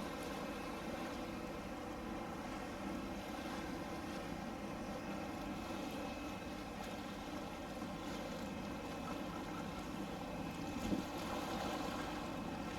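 A steady engine drone with many faint tones in it, over water and wind noise, and one short bump about eleven seconds in.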